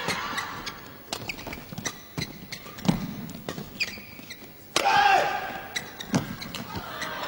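Badminton rally: irregular sharp cracks of rackets striking the shuttlecock, with a louder stretch of crowd or court noise about five seconds in.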